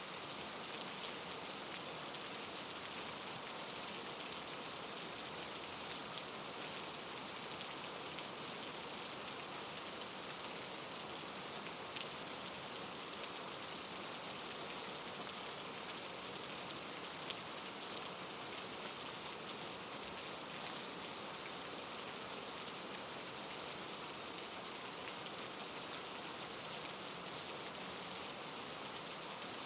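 Steady soft rain falling, an even hiss with scattered faint drop ticks.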